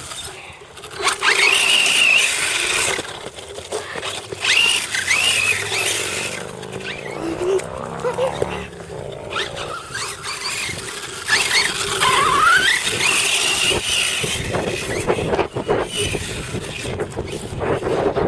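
High-pitched squeals and shrieks come several times, rising and falling in pitch. Around the middle, a small electric RC car motor whirs up in pitch.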